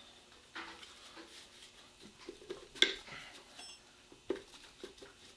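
Metal clinking and scraping as a piston and connecting rod are worked out through the bottom of a Ford 351M V8 engine block, with a few light knocks and one sharp metal clank about three seconds in.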